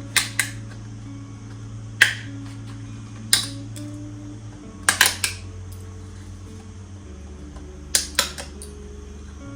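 Sharp clicks and knocks, about nine in all, several coming in quick pairs, over soft sustained background music.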